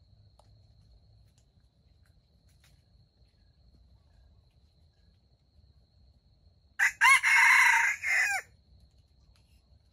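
A junglefowl rooster crows once about seven seconds in: a short first note, then a longer held note that drops in pitch as it ends.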